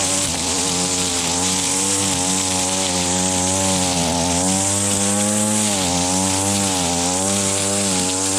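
Small petrol engine of a handheld power tool running at high speed, its pitch sagging and recovering a few times in the second half as it bogs and picks up again.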